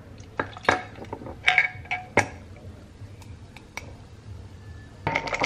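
Ice cubes and a glass clinking and knocking in a short run of sharp clicks, some briefly ringing, as sparkling water is opened and poured over ice. Near the end a handheld frother starts up in the glass with a fast, steady buzz.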